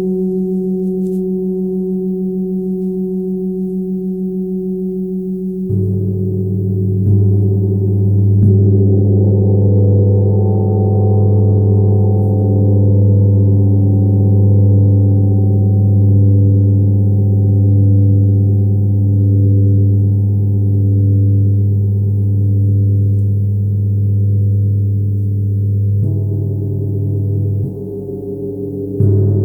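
Tibetan gong ringing with a deep, sustained hum that swells and fades in a slow, even pulse. It is struck again about six seconds in, twice more within the next few seconds, and again twice near the end.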